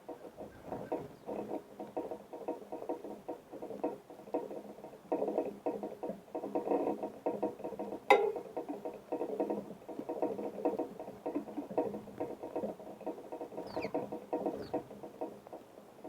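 Small birds pecking at seed on a feeder close to the microphone: rapid, irregular tapping and rattling, with one sharp click a little past the middle. Two faint, short high chirps near the end.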